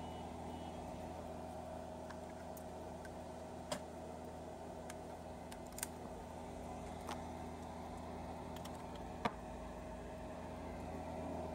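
Steady low electrical hum and hiss, with four sharp clicks spread through it as the opened electronic instrument and its cable are handled.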